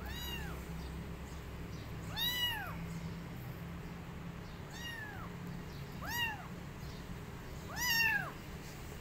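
Small white kitten mewing five times, each a short high call that rises and then falls in pitch. The second and last calls are the loudest. A low steady hum runs underneath.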